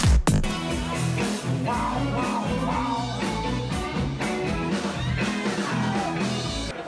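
Background music: a rock-style song with guitar and singing, taking over from a heavy electronic beat right at the start.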